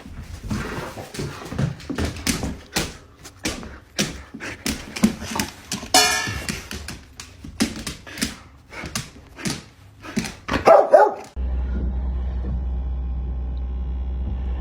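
A dog barking and yipping many times in short, sharp calls, with one louder, longer call about six seconds in. About eleven seconds in, the sound changes abruptly to a steady low hum.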